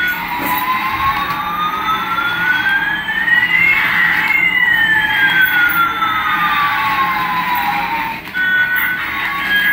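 An electronic siren-like tone makes one slow wail: it glides up for about four seconds and back down for about four, with a second tone moving the opposite way so the two cross at the top. It cuts off about eight seconds in, and music takes over.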